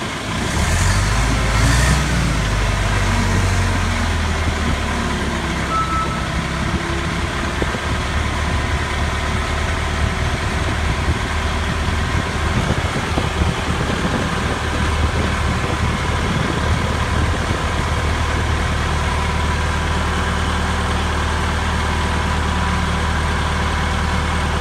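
Vehicle engine running, its pitch rising over the first two seconds as it picks up speed, then holding steady.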